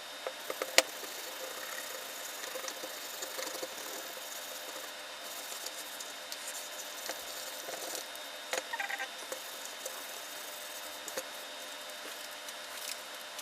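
Light clicks and taps from handling small parts, over a steady hiss and faint hum; the sharpest click comes just under a second in. A brief chirpy squeak sounds about two-thirds of the way through.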